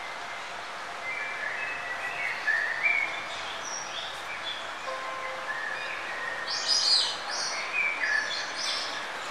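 Birds chirping and twittering over a steady background hiss, with a brief burst of higher, louder chirps about seven seconds in.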